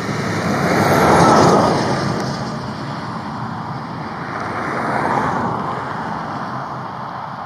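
Two vehicles passing close by on a road: a swell of engine and tyre noise that peaks about a second in and fades, then a smaller one around five seconds in.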